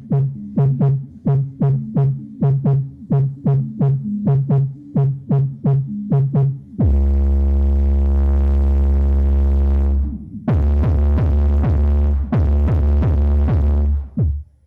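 Electronic bass music. First comes a rapid run of short drum hits, each dropping sharply in pitch, about three a second. About seven seconds in, a long, steady, very deep bass tone takes over. More falling hits over the deep bass follow, and the track cuts off at the end.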